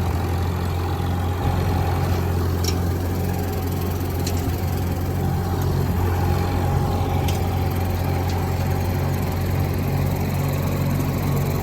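Case 730 tractor engine running steadily while pulling and driving a 6-foot rotary mower, with a few faint clicks over the engine note.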